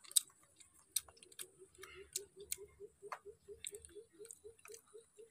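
Chopsticks clicking against a bowl and a metal tray as rice noodles are picked up, a few sharp clicks at irregular times. Beneath them is a soft low ticking about five times a second and a steady high-pitched whine.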